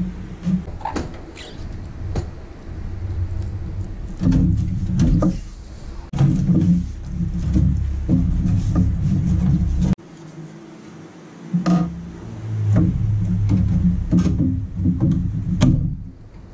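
Background music with a steady low bass line, cut off abruptly about ten seconds in and resuming, over scattered clicks and knocks of computer parts being handled and fitted into a PC case.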